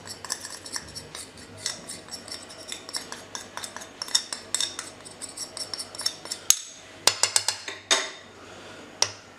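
Light, rapid tapping and clicking as spices are knocked out of a small cup into a nonstick frying pan of diced onions, followed by a few sharper clinks of a spoon at the pan in the last few seconds.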